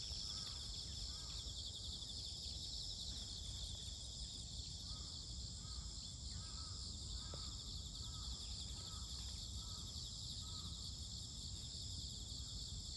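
Steady high-pitched insect chorus with a fast pulsing trill, over a low background rumble.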